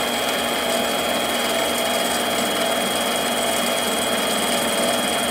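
Mini lathe running steadily with a steady high whine while its cutter takes a light facing cut across a spinning steel disc. The lathe is new and still being broken in.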